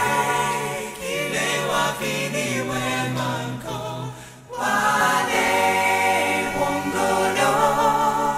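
Choir singing sustained, gliding notes in harmony, with a short break about four and a half seconds in.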